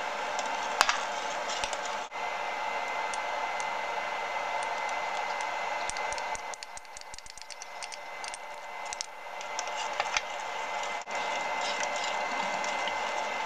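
A metal spoon stirring soup in a stainless steel saucepan, with light clinks and scrapes against the pot and a small bowl, thickest between about six and nine seconds in, over a steady fan-like whoosh.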